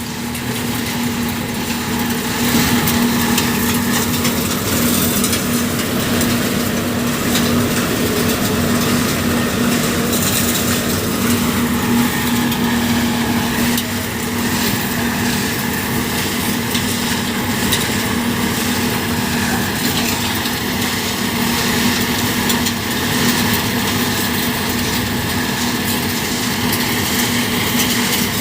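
Diesel road-repair machinery running continuously, a steady engine hum under a dense, rough mechanical noise.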